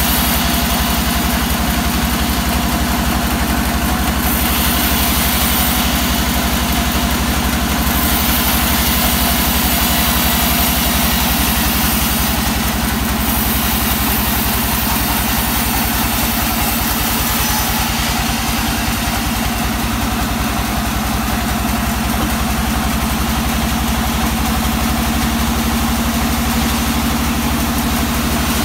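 Band sawmill running steadily with a constant low machine hum, its blade hissing as it cuts through a hard teak log; the high cutting noise swells and eases in stretches as the log is fed through.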